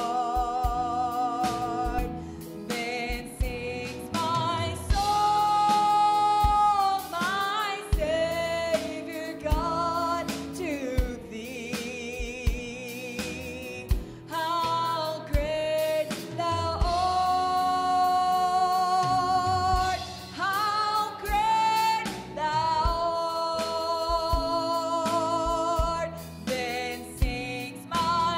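Live gospel worship song: a woman sings long, held notes with vibrato over piano, bass guitar and a drum kit.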